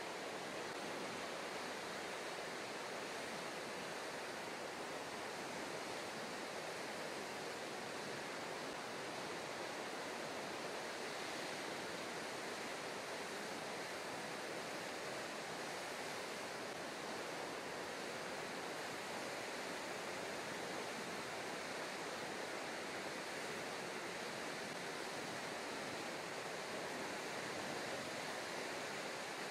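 Steady, even rushing noise of sea ambience with no distinct splashes or other events.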